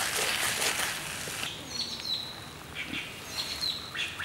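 Food sizzling and crackling in a clay pot for about the first second and a half, then dropping away. After that, small birds chirp in two short runs.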